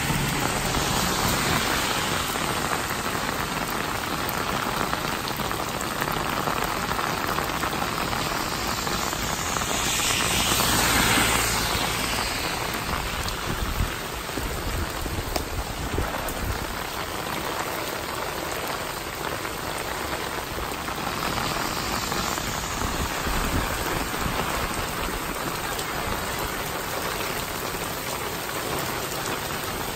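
Heavy rain pouring onto a wet street and pavement: a dense, steady hiss, with a louder swell around ten seconds in.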